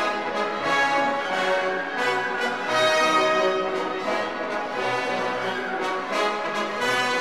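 Orchestral background music with held notes.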